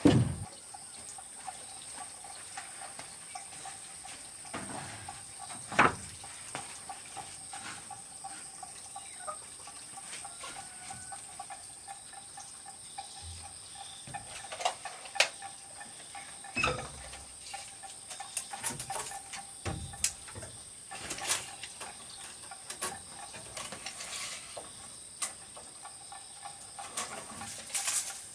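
Scattered knocks and clacks of sawn wooden boards being handled and set down on a plank floor, over a steady high insect drone. The loudest knocks come about a second in, around six seconds, and again in a cluster near the end.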